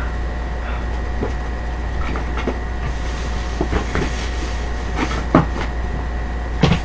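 A handful of short knocks and clicks from objects being handled, among them a plastic cooler box and its lid being touched and moved, the loudest a little past five seconds in and near the end. A steady low hum runs underneath.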